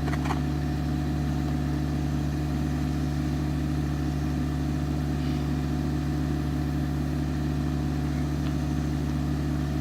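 Excavator engine running steadily at an even speed, a constant low hum.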